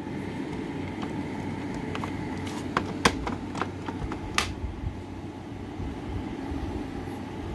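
Steady low background hum with a few light clicks around the middle. No smoke-alarm beeping is heard.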